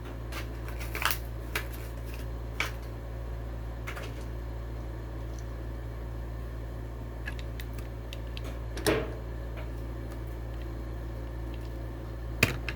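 Plastic blister packaging and cardboard crackling and clicking in short scattered bursts as a Hot Wheels package is opened by hand, the loudest crackle near the end, over a steady low hum.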